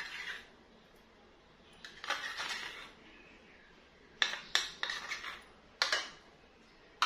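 Metal spoon scraping and knocking against small ceramic bowls while scooping out mayonnaise: a scrape about two seconds in, then a quick run of sharp clinks a couple of seconds later and single clinks near the end.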